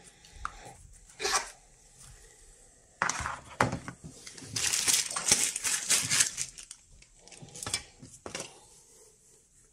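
Hands clearing small items off a desk: scattered knocks and clatter of hard objects, with a dense stretch of plastic zip-lock bag crinkling through the middle.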